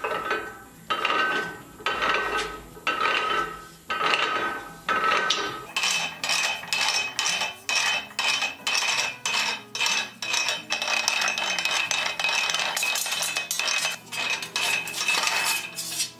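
Hand-cranked tire bender rolling a length of steel channel iron into a curve: metal clanking and clinking from the gears and the bar, with a ringing note from the steel. About one clank a second at first, turning into a quicker, steady clatter after about six seconds.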